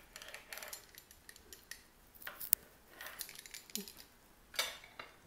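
Faint scrapes and clicks of a metal pizza cutter wheel on a granite countertop as dough is cut, with one sharp click about two and a half seconds in and a short, louder scuff near the end.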